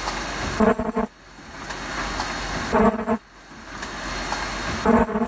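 A multi-layer rug-material welding machine running in a repeating cycle: a hiss swells, then a short buzzing tone sounds and cuts off suddenly. This happens three times, about two seconds apart.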